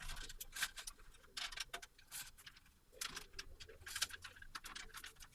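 Handling sounds of a PC case's front-panel USB 3.0 cable being pulled out through a cable-management hole: a run of light, irregular clicks and rustles as the cable rubs and taps against the case.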